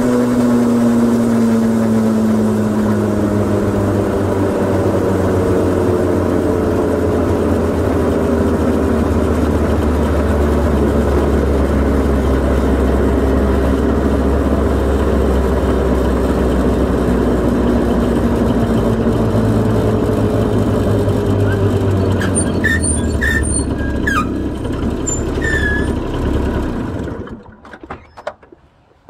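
Honda Gyro X TD01 two-stroke scooter engine, its pitch falling as it slows over the first few seconds, then running steadily low and deep. It cuts off abruptly about 27 seconds in, leaving a few faint clicks.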